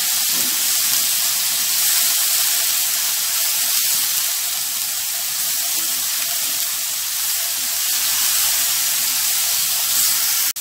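Ground spice paste frying in oil in a wok, giving a steady sizzle as it is stirred with a wooden spatula and sautéed until fragrant.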